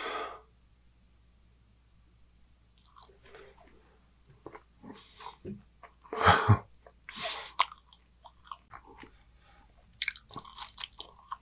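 Close-miked biting and chewing of a Domino's New York-style pepperoni pizza slice, the crust crunching. The loudest bite comes about six seconds in, with several short crisp bites near the end.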